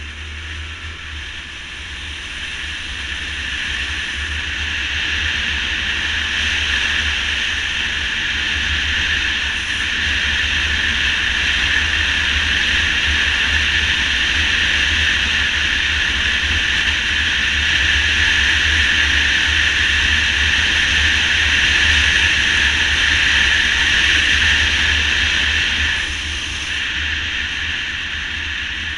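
Motorcycle riding along at speed: wind rushing over the camera microphone with a low buffeting rumble, over the steady sound of the engine. It grows louder over the first few seconds and eases a little near the end.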